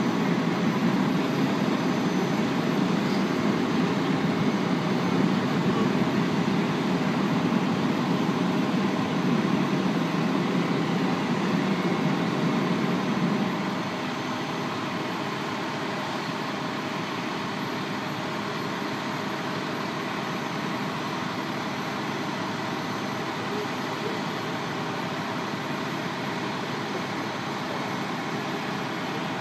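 Idling fire trucks' diesel engines running with a steady low rumble, which drops noticeably in level about halfway through.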